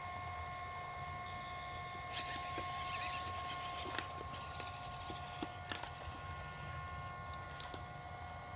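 Sony Aibo ERS-111 robot dog's leg joint motors and gears running as it moves from standing down to sitting, with a burst of motor noise in the middle and a few sharp clicks of its joints and feet.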